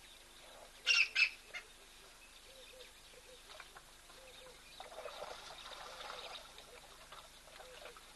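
Two short, sharp, high-pitched calls close together about a second in, then softer scattered calls and rustling.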